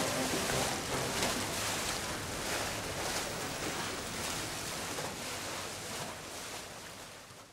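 A steady rushing noise with no tone in it, growing gradually quieter and dying away at the end.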